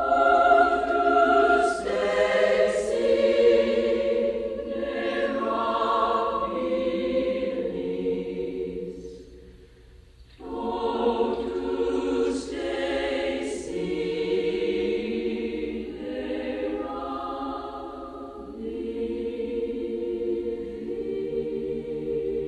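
Choir singing as background music, in two long phrases: the first fades out just before ten seconds in, and the second starts half a second later.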